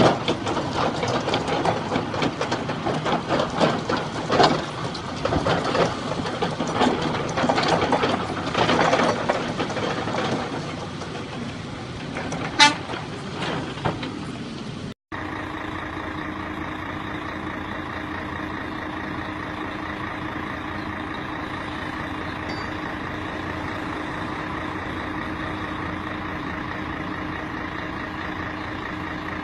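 Heavy machinery working, with irregular knocks, clatter and crunching for about the first half. After an abrupt cut, a steady, even engine drone at a fixed pitch takes over.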